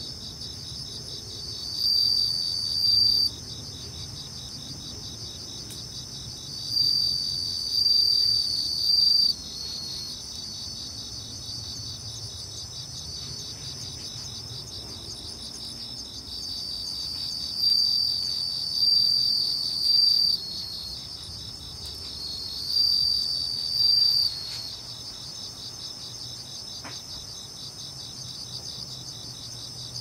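Crickets chirping: a steady high-pitched insect drone with louder pulsing trills of one to three seconds coming every few seconds. A single faint pop from the wood fire comes near the end.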